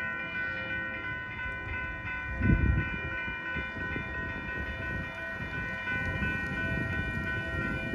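Railroad crossing warning bell ringing steadily over a low rumble, with a brief low thump about two and a half seconds in.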